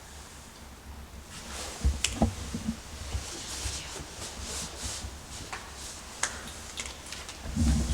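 Irregular light clicks and scuffs with rustling, from people moving about on a tunnel floor. The clicks begin about a second and a half in. Nothing stands out above the rest.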